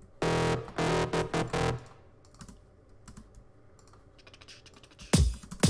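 A distorted Serum synth bass patch for a drum-and-bass 'foghorn' roller plays in a few short repeated notes. Faint computer keyboard and mouse clicks follow, and near the end a deep bass hit falls in pitch.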